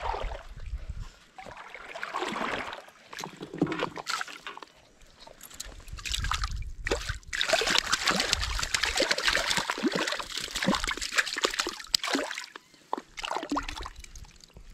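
River water splashing and sloshing in irregular bursts, heaviest for about five seconds in the middle.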